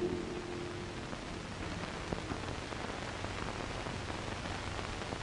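Steady hiss and faint crackle of an early sound film's optical soundtrack, with no music or speech; a held sung note dies away in the first half second.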